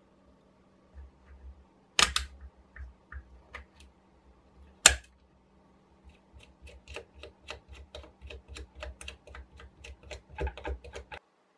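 Small steel parts of a vintage electric soldering iron clinking and clicking as hex nuts are fitted and tightened with a spanner on the barrel and perforated heat shield. Two sharper clinks come about two and five seconds in, then a run of light clicks, about four a second, as a nut is turned on by hand.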